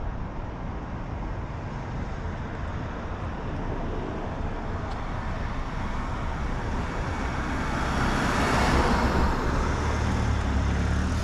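Road traffic: a steady low rumble, with a vehicle passing close that is loudest about eight to nine seconds in. Near the end an engine's note starts to rise as it speeds up.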